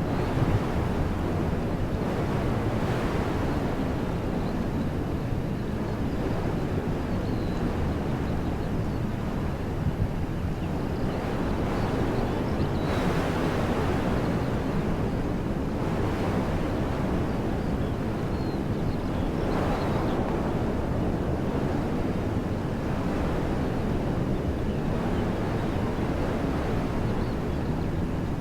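Wind blowing through trees in a steady rushing noise, swelling in gusts several times.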